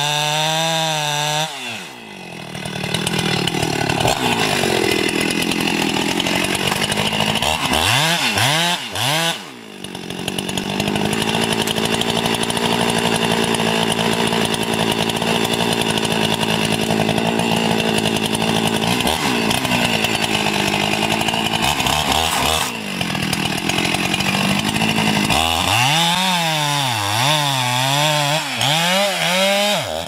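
Large long-bar chainsaw cutting into the base of a huge tree trunk during felling. For long stretches the engine holds a steady full-throttle pitch in the cut; near the start, around nine seconds in and over the last few seconds, it revs up and down as the cut eases and the saw is worked.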